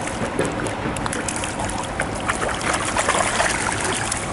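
A hooked trout splashing and thrashing at the surface of the water as it is scooped into a landing net, in quick irregular splashes.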